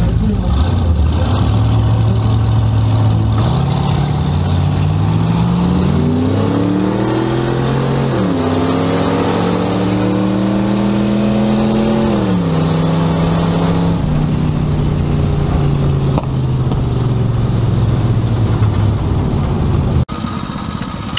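Hot rod engine heard from inside the cabin on a drag-strip pass. It runs steadily at first, then accelerates hard with a climbing pitch that drops sharply at a gear change about eight seconds in. It climbs again, steps down near twelve and fourteen seconds as the throttle comes off, and then falls away as the car slows.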